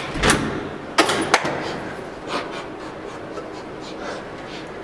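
A door being knocked and pushed open, with four sharp bumps in the first second and a half. A steady rustling noise follows as a person crawls out across the carpeted floor.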